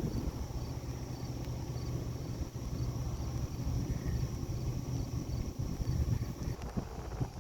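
Night insects chirping steadily, with a faint high chirp repeating about twice a second, over a louder low rumbling noise.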